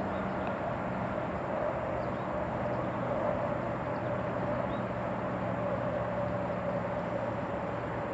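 Steady outdoor engine hum from a distant motor, with an even hiss of background noise underneath.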